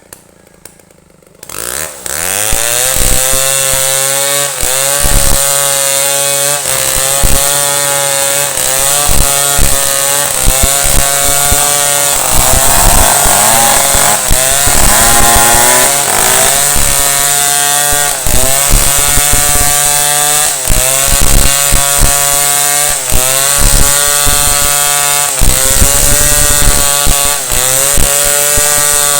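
Chainsaw cutting wood, coming in loud about a second and a half in; the engine's pitch repeatedly sags and recovers as the chain bites under load.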